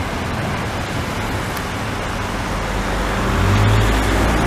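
Road traffic on a wet street: cars passing slowly with a steady tyre hiss, and a low engine hum that grows louder about three seconds in.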